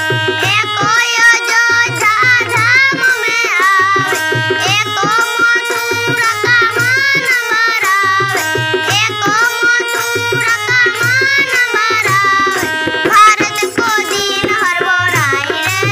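A girl's voice singing a devotional bhajan to harmonium accompaniment, its reedy chords held under the melody. A two-headed barrel drum keeps a rhythm beneath in recurring groups of low strokes.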